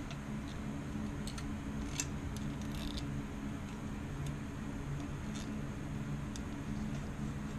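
A few scattered light clicks from hands handling small plastic parts against a bicycle frame, over a steady low hum.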